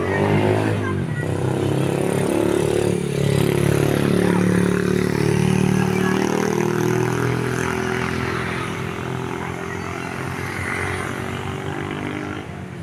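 A bus's diesel engine running as the bus moves off. It is loudest in the middle and fades towards the end.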